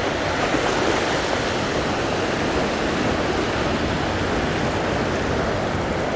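Ocean surf washing over shoreline rocks: a steady, unbroken rushing.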